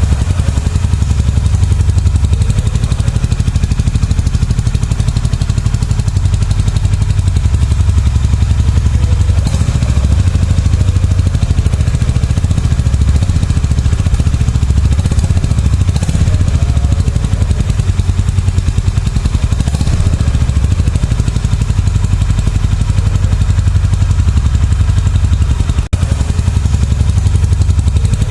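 Air-cooled single-cylinder 350 cc motorcycle engine idling steadily through its exhaust, with an even, rapid low thump of exhaust pulses.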